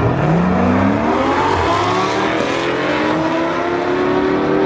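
Two cars launching off a drag-strip start line and accelerating hard at full throttle, their engine notes rising steadily in pitch as they pull away.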